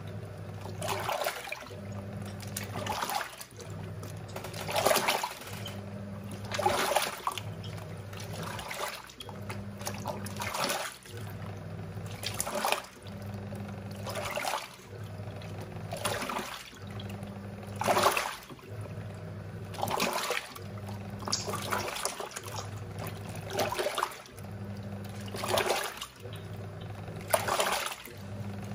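Giantex EP23113GB top-loading washing machine washing: the pulsator motor hums in short spells, with a swish of sloshing water about every two seconds.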